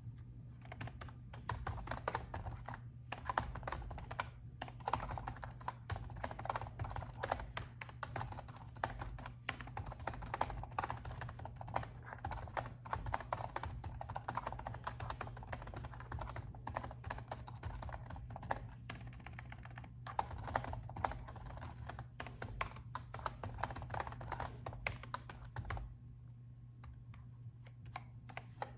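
Continuous typing on a laptop keyboard, a dense run of irregular key clicks that stops about three seconds before the end, over a steady low hum.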